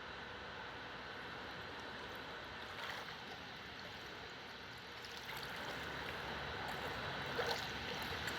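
Steady trickling, running water with a few small splashes, getting a little louder about five seconds in.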